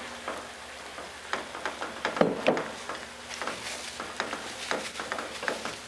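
A wooden spoon stirring a thick chili in a metal pan: irregular scraping and light knocks against the pan, two of them louder a little after two seconds in, with a low sizzle from the simmering pot. Near the end, light clinks of utensils and dishes.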